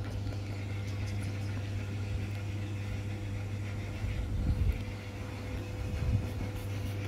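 A steady low mechanical hum with a faint thin tone above it, and a few soft low bumps about four and six seconds in.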